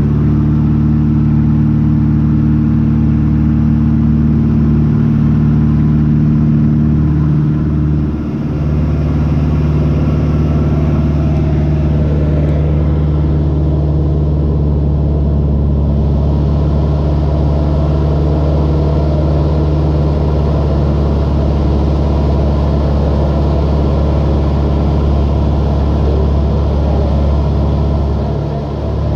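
Light aircraft's piston engine running steadily, with a brief dip in loudness about eight seconds in and another near the end.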